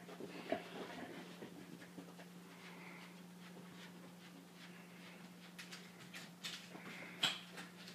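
Yellow Labrador retriever carrying a bone in her mouth, making soft whimpering sounds. There are light scattered clicks in the second half and one sharp knock near the end, over a steady low hum.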